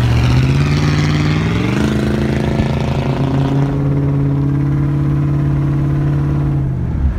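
Muffler-deleted 5.7 L V8 of a Chevrolet Suburban with a steady, loud exhaust drone. About two seconds in it pulls away, the pitch stepping up and then holding steady, and the sound breaks off just before the end.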